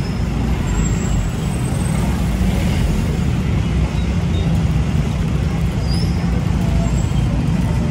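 Steady street traffic noise: a constant low rumble of road vehicles with no single event standing out.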